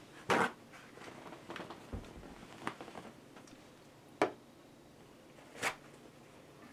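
A paper towel sheet being torn and handled: a short ripping rustle, followed by a few light knocks and clicks of small items such as an epoxy syringe being picked up and set down on a wooden bench.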